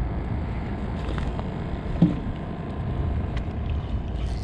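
Steady low rumble of wind buffeting the microphone, with a few faint clicks.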